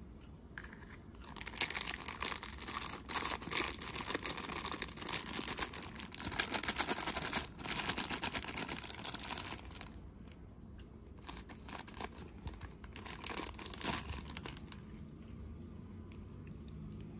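Thin clear plastic bag crinkling and tearing as a small toy figure is unwrapped by hand, in a long dense stretch of crackling, then lighter patchy crinkles that die away in the last few seconds.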